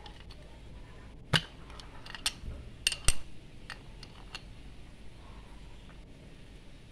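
A steel combination wrench clinking on the terminal nut and solenoid housing of a starter motor as the nut is loosened: about six sharp metal clicks, spaced unevenly over the first few seconds.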